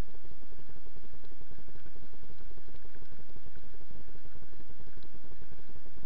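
Steady low rumbling, crackling noise on a body-worn camera's microphone as its wearer walks behind the dog, with no clear engine or voice in it.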